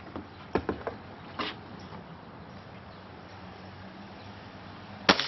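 Ruger Blackhawk .177 spring-piston break-barrel air rifle fired once: a single sharp crack about five seconds in. A few faint clicks come before it.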